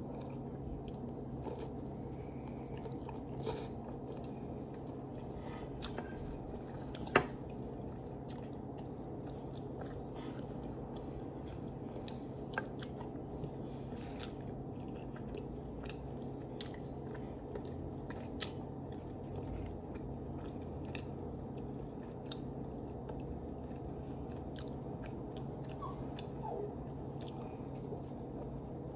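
A person chewing and biting into a chipotle chicken avocado sandwich, giving soft wet mouth clicks and smacks. One sharp click about seven seconds in stands out, over a steady low hum.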